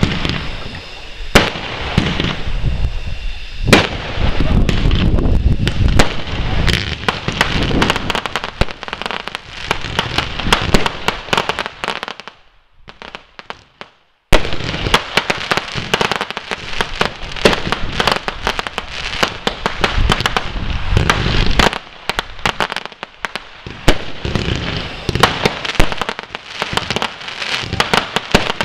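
Fireworks display: a dense run of bangs from bursting shells and rapid crackling. The sound drops out for about two seconds a little before the middle, then the crackling and bangs resume.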